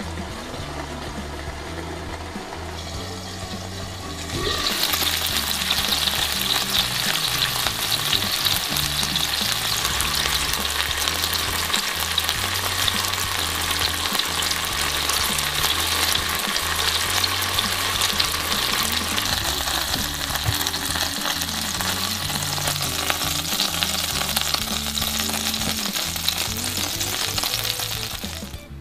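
Chicken frying in a nonstick pan: a quieter sizzle at first under a glass lid, then a loud, steady sizzle from about four seconds in that stops just before the end.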